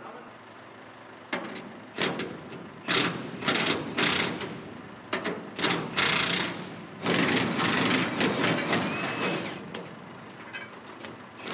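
Impact wrench run in repeated short bursts, spinning off the bolts holding grain bin parts in place.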